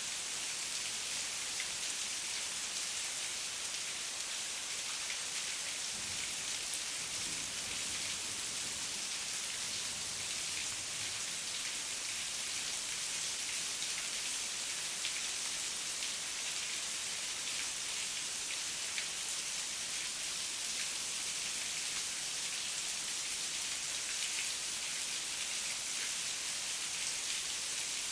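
Heavy rain falling steadily, a dense even hiss with many fine drop ticks. A faint low rumble runs under it for a few seconds about a quarter of the way in.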